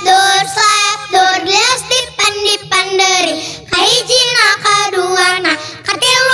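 A child singing a Sundanese song, phrase after phrase, with a wavering, ornamented pitch on the held notes.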